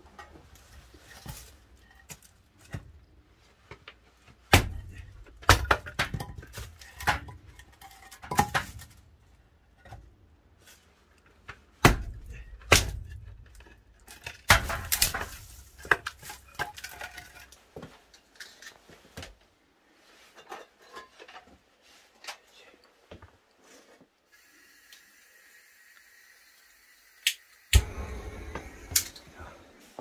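Irregular knocks and clinks of objects being handled and set down while a wood fire is being built and lit, about a dozen sharp strikes spread out with pauses between them. A short steady hiss comes in near the end.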